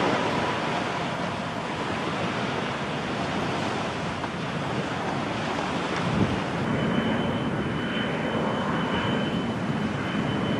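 Jet airliner engines on final approach, a steady roar with some wind on the microphone. About two-thirds of the way through the sound changes and a thin steady high whine joins the roar.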